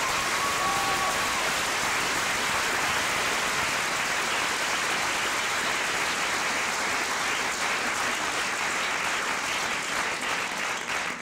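Audience applauding, a dense steady clapping that eases a little near the end.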